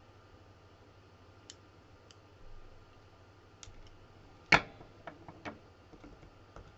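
Small metal lock parts clicking and tapping as a lock is taken apart by hand: one sharp click about halfway through, then a few lighter clicks, with faint ticks scattered around them.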